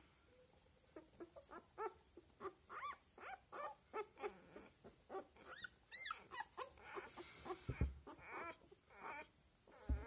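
Week-old Australian labradoodle puppies squeaking and whimpering: a rapid run of short, high calls, each rising and falling in pitch. A dull thump near the end.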